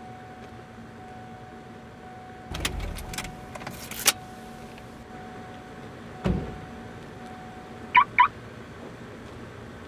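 Car key clicking and rattling as it is turned in the ignition, then a single low thud like a car door shutting, and two short rising chirps near the end. A faint steady whine runs underneath until the chirps.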